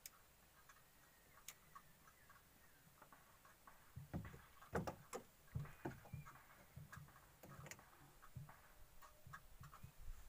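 Faint scattered ticks, then from about four seconds in irregular knocks and low thumps on a wooden boat's planks as the angler moves about.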